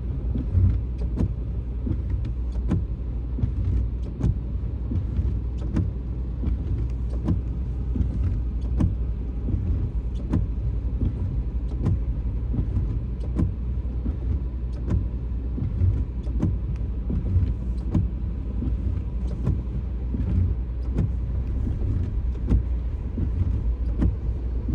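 Inside a car driving on a snowy road: a steady low rumble of engine and road noise, with many irregular light ticks and knocks.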